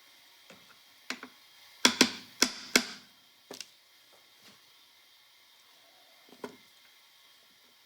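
Metal parts of a Pathé spring motor knocking and clicking together as the winding crank gear is worked onto its shaft. Four sharp knocks come in quick succession about two seconds in, with a few lighter clicks before and after.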